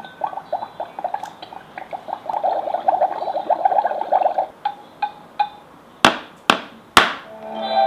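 Magic Mixies toy cauldron playing its electronic spell effects after water is poured in: a fizzing, bubbling sound for about four seconds, a few light clicks, three loud sharp hits about half a second apart, then a tinkly melody starting near the end.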